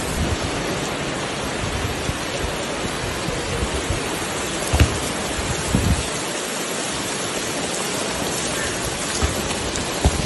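Heavy rain pouring down: a dense, steady hiss of rain striking the ground and standing water. Two dull low thumps stand out about halfway through.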